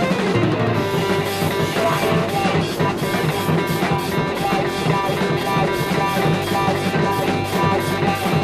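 Jazz-fusion band playing live: electric guitar, electric bass, keyboards and drum kit in a busy, dense instrumental passage, the drums keeping up a steady beat.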